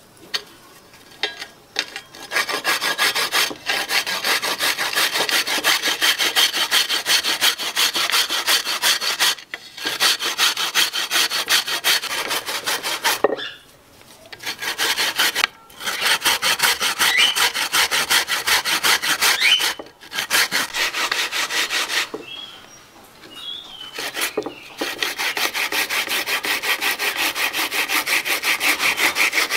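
Roasted half-young coconut scraped on a long stainless-steel hand grater: rapid rasping strokes in runs, broken by several short pauses.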